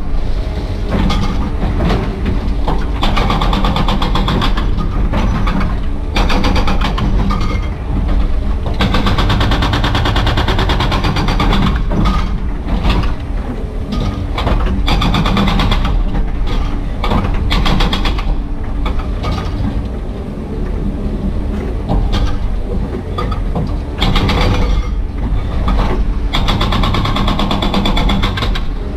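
Excavator-mounted hydraulic breaker hammering concrete rubble in rapid repeated blows, with a few brief pauses, over the excavator's diesel engine running. Heard from inside the excavator cab.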